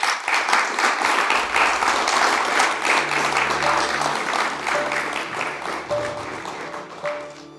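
Audience applauding, the clapping thinning out near the end. Soft music fades in under it about halfway through.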